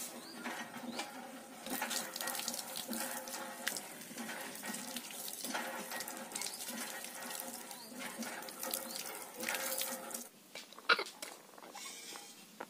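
Water gushing from a hand pump's spout and splashing onto a banana leaf and the stone drain below, swelling about every two seconds as the handle is worked. The flow stops about ten seconds in, and a sharp click follows.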